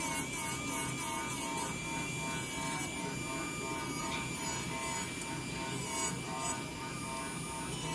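Brunson electric nail drill (e-file) running, its bit rubbing and grinding gel polish off a fingernail.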